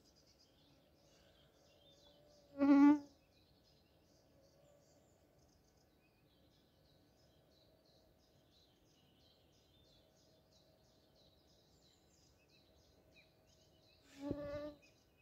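A flying insect buzzes close by twice, each time for under half a second, with a wavering pitch. Birds chirp faintly throughout.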